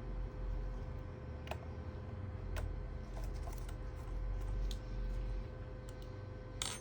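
Scattered small, sharp clicks of a screwdriver and screws on a laptop's metal bottom case, about seven spread irregularly, the loudest near the end, over a steady low hum.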